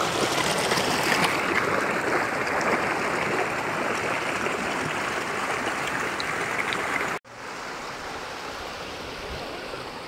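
Sita river's flowing water rushing steadily in the rainforest. About seven seconds in it cuts suddenly to a softer, more distant-sounding rush of water.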